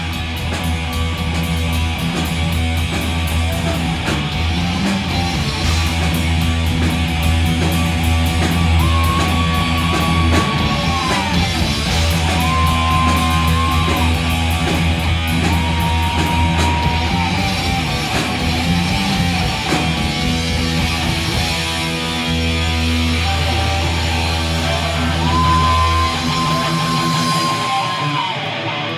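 Heavy metal band playing live: distorted electric guitar, bass guitar and drum kit, with several long held high notes that slide down at their ends. The deep bass drops out near the end.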